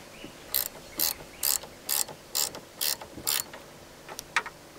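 Ratcheting spanner tightening the nut on a car battery's negative terminal clamp: about seven ratchet clicks at roughly two a second, then a couple of sharper metal clicks near the end.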